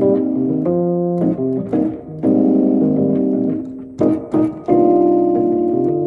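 Fender Rhodes electric piano playing chords, each struck and held a second or two, with a pulsing wobble on the held notes.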